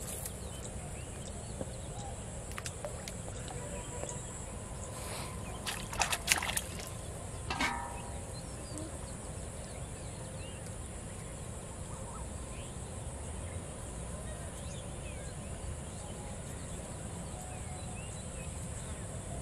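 Outdoor ambience: a steady high hiss over a low rumble, with faint bird chirps. A short cluster of sharp sounds comes about six seconds in and another about a second and a half later.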